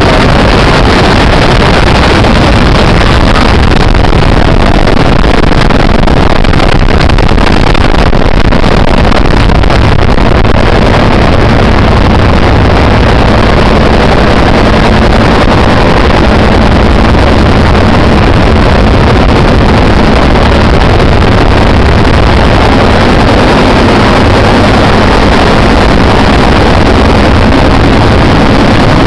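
Helicopter engine and rotor running loud and steady, heard from aboard.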